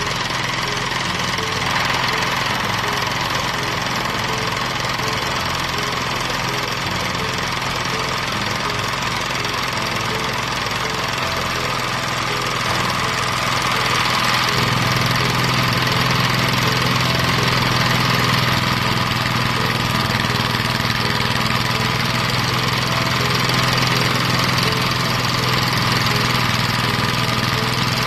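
Engine-driven rice thresher running steadily, getting a little louder and deeper about halfway through.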